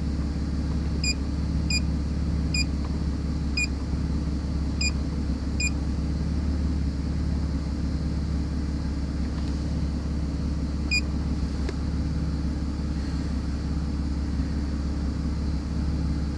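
2002 BMW 330Ci's straight-six engine idling with a steady low hum, running lean with a random misfire (P0300) that the mechanic puts down to vacuum leaks. Several short electronic beeps in the first six seconds and one more near eleven seconds.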